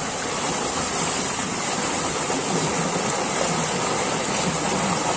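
Steady rush of water flowing and churning through a narrow concrete irrigation channel around people wading in it.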